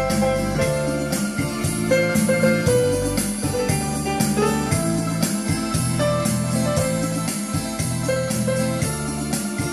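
Yamaha PSR-E473 portable keyboard played by hand: a melody in the right hand over held chords, with a steady beat underneath.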